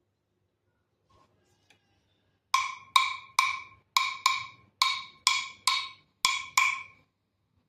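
A small wooden percussion instrument struck in a short rhythm, about ten knocks over four and a half seconds starting about two and a half seconds in, each with a brief clear ringing pitch.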